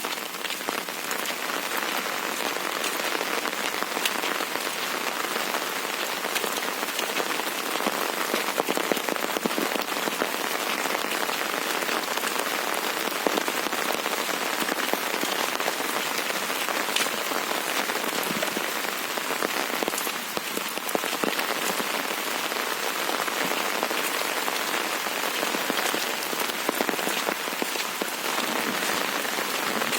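Steady heavy rain, a continuous hiss with scattered sharp drop taps.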